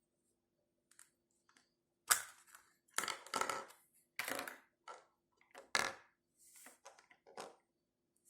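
Small plastic toys and egg capsules being handled: a string of sharp clicks and short crinkly rattles, the loudest about two seconds in.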